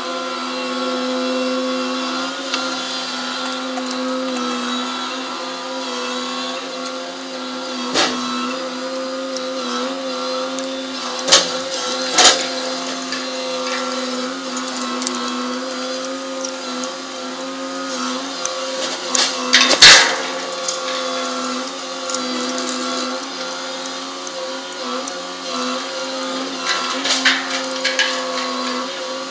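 Machinery of a grab-bucket crane ship unloading gravel: a steady whining drone, broken by a few sharp knocks, the loudest about two-thirds of the way in, with a short cluster of them near the end.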